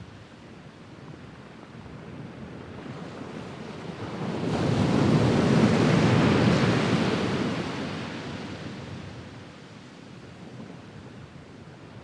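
Sea waves on a sandy beach: a soft wash that swells about halfway through into the rush of a wave breaking and running up the sand, then fades back to a gentle wash.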